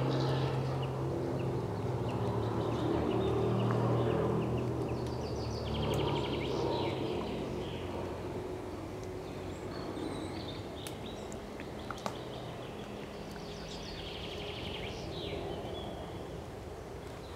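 Wild boar grunting low and rooting as they forage, the grunts strongest in the first half. A small bird sings short trills twice, and there are a few sharp clicks.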